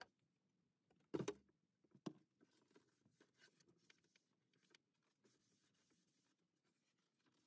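Faint handling sounds at a plywood cabinet: two sharp knocks about a second apart, the first the louder, then light scattered taps and scuffs, and a brief soft rubbing of a cloth wiping the plywood near the end.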